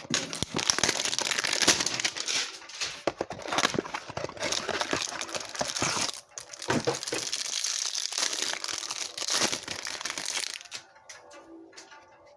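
Plastic wrapper on a pack of trading cards being crinkled and torn open, a dense crackling that stops about eleven seconds in.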